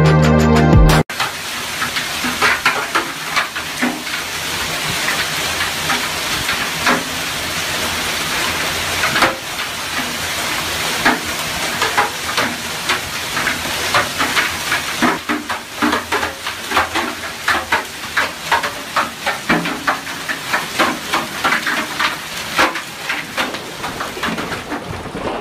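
Heavy hailstorm: hailstones pelting down in a steady rush, with dense, irregular sharp clicks of stones striking the ground and hard surfaces. Music cuts off about a second in.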